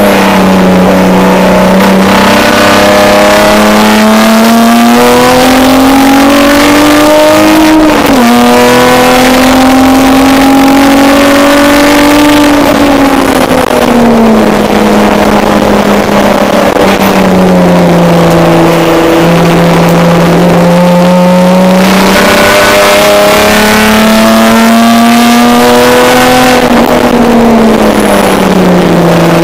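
Race car engine heard from inside the stripped, caged cabin, revving up under acceleration with a sudden drop in pitch at an upshift about eight seconds in. The revs fall off around twelve to fourteen seconds in, hold low, climb again past twenty seconds and fall once more near the end, over steady road and wind noise.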